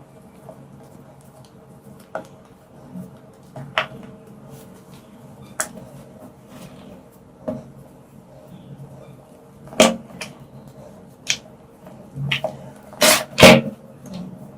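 Dyed gym chalk being crushed by hand: sharp, irregular crunches and snaps every second or two, with the loudest pair close together near the end.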